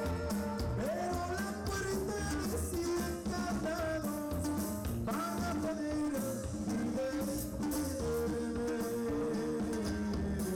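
Norteño band playing dance music, with a steady bass-and-drum beat under held melody notes.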